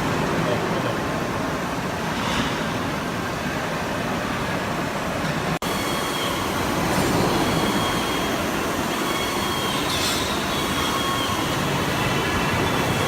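CNC press brake running: a steady mechanical noise with a faint high whine.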